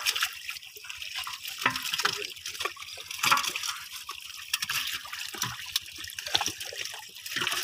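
Water splashing and dripping as live fish are picked out of a net in shallow water and dropped into a metal pot of water, the fish flapping and thrashing. Many short, sharp splashes follow one another throughout.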